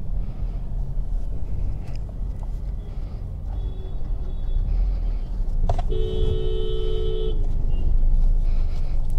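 Steady low road and engine rumble of a moving car, with a two-tone car horn sounding once for about a second and a half, a little under six seconds in.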